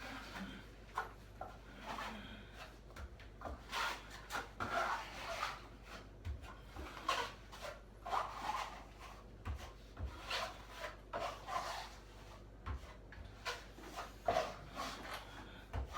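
Irregular scraping and rubbing strokes of a hand tool working joint filler on a cracked ceiling, one or two strokes a second.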